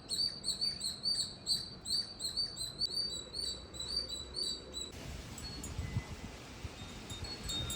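A small bird chirping over and over in short, high, evenly spaced chirps, about three a second, stopping about five seconds in; after that only a faint hiss remains.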